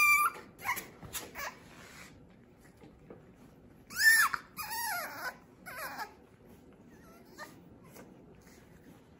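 French bulldog puppies yelping and whining in short, high cries that rise and fall in pitch: a few in the first second and a half, then a louder run of three about four seconds in.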